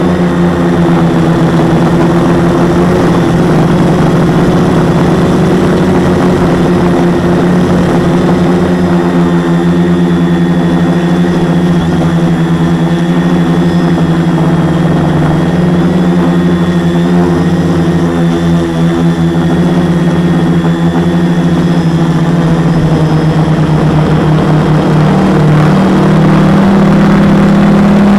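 Home-built 450 quadcopter's four MultiStar 2212 920kv brushless motors spinning 10x4.5 props, a steady drone heard up close from the onboard camera. Its pitch wavers as the throttle shifts, and it grows slightly louder and steadier near the end.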